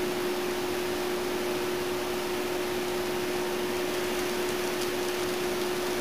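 Steady hiss with an unchanging hum, and a few faint ticks near the end.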